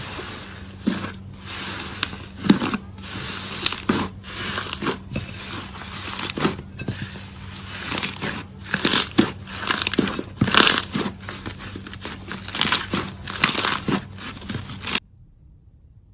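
Slime being squeezed and pressed by hand, giving irregular crunching and crackling noises over a steady low hum; it stops abruptly near the end.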